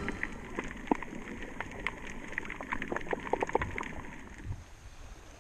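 Underwater sound through the camera's housing: a low wash dotted with many irregular short clicks and crackles, which thin out and fade after about four seconds.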